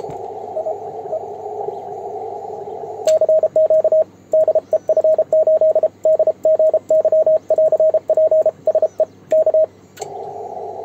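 Yaesu HF transceiver's receiver hiss through a narrow CW filter. A relay click follows about 3 s in, then the Morse code sidetone of a homemade single-lever paddle keying dots and dashes in a steady mid-pitched tone. Near the end another relay click sounds and the receiver hiss returns.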